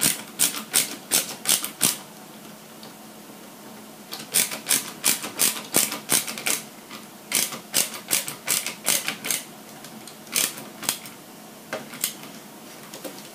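Sharp clicks from hand tools and small parts during assembly of a model truck's chassis, coming in quick runs of several, about three or four a second, with short pauses between the runs.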